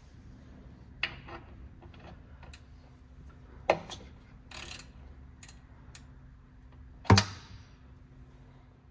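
Wrench working the drain plug on the Fiat 850's finned oil pan: scattered metal clicks and knocks, with a sharp knock near the middle and the loudest clank, briefly ringing, about seven seconds in, over a faint steady hum.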